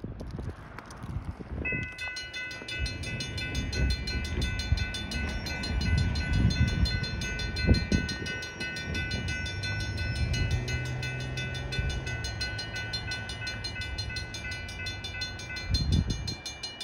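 Distant approaching train sounding its horn in one long, steady chord that begins about two seconds in and stops near the end, with wind gusting on the microphone.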